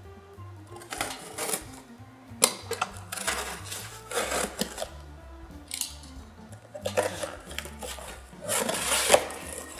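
Utility knife slicing through the packing tape on a cardboard box in a series of short strokes, then the box flaps pulled open near the end, over background music.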